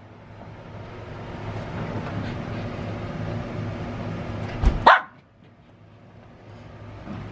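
A dog's rough, steady play noise for several seconds, then one sharp, loud bark just under five seconds in.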